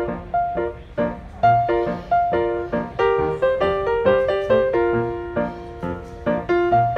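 Background piano music: a gentle melody of struck notes over a low bass note repeated about every second and a half.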